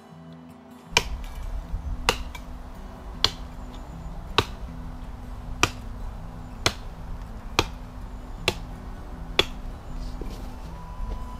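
Hultafors bushcraft axe chopping into a dead log, nine blows at about one a second, each a sharp crack of steel biting into dry wood.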